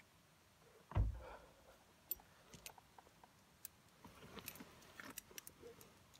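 A dull thump about a second in, then scattered light clicks and small knocks: someone opening a car door and climbing out, with handling noise on the phone.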